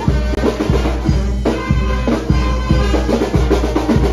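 Background music with a steady drum-kit beat and bass, the kick drum landing about twice a second.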